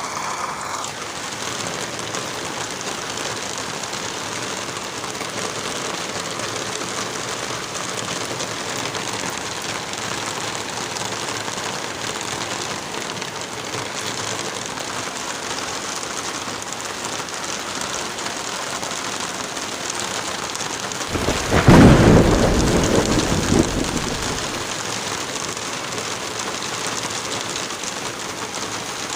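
Steady rain falling, with one clap of thunder about three-quarters of the way through: it starts suddenly, rumbles low and loud, and dies away over about three seconds.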